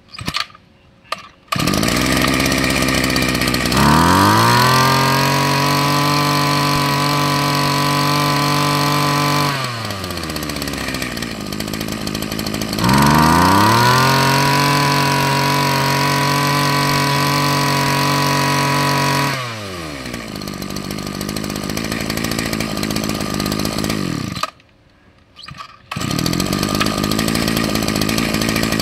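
Tanaka 20cc two-stroke brush cutter engine pull-started with a couple of short pulls, then idling and revved up twice to a high steady pitch for several seconds each before dropping back to idle. It cuts off abruptly about 24 seconds in and is running again at idle a second or so later.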